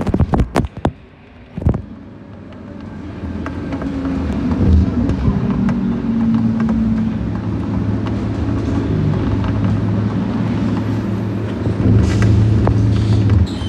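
Scania K230UB city bus's five-cylinder diesel heard from on board, pulling away and building up to a steady drone as the bus gathers speed. A few sharp knocks sound in the first two seconds.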